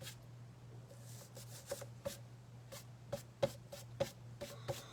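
Light, quick taps of a paintbrush, starting about a second in and coming more often, several a second, near the end, over a faint steady low hum.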